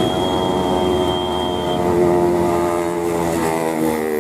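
Sand dump truck's diesel engine labouring at low revs, its pitch sagging about three seconds in as if close to stalling. A thin high whine sounds over it for the first couple of seconds.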